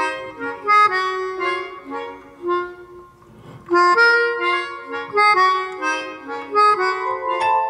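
Recorded music: a reedy instrument plays a slow melody of held notes, dips briefly about three seconds in, then builds into a held chord near the end.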